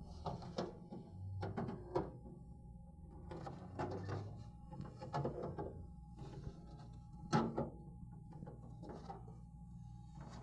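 Scattered light clicks and knocks of eggs and plastic refrigerator compartments being handled, the loudest knock about seven seconds in, over a faint steady hum.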